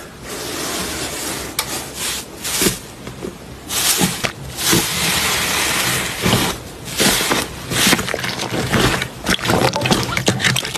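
Slime being squeezed and poked by hand, squelching and crackling in irregular bursts, with a long crackly stretch from about four to six and a half seconds in.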